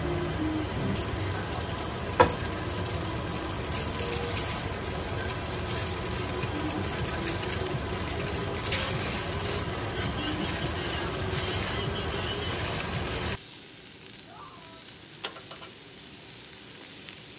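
Glass noodles and vegetables sizzling in a hot wok as they are stirred and tossed with tongs, with one sharp clack of metal on the pan about two seconds in. Near the end it changes to a quieter sizzle of meat cooking on a gas grill.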